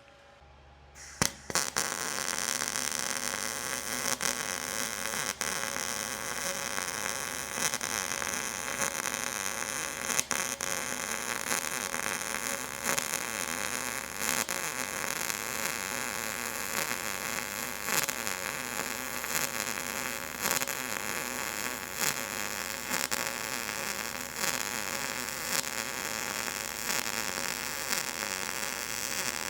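Welding arc on steel, crackling and hissing steadily, striking up about a second in after a couple of sharp clicks.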